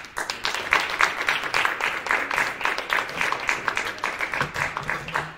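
Small audience applauding, many hands clapping together, dying away near the end.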